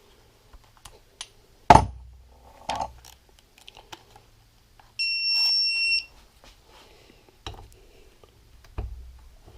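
Sharp knocks and clicks of metal engine parts and tools being handled, one hard knock about two seconds in. About five seconds in comes a single steady electronic beep lasting about a second.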